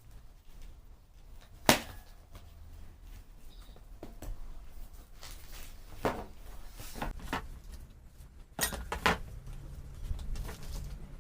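Scattered knocks and clanks of tools and parts being handled during a motorcycle front-wheel job, with one sharp, loud knock about two seconds in and a quick cluster of knocks near the end, over a low steady hum.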